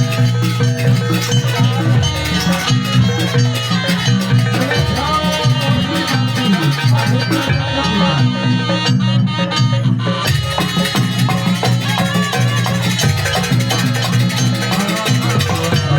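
Loud, dense live music from a Banyuwangi jaranan ensemble, with drums and percussion playing continuously under held pitched tones.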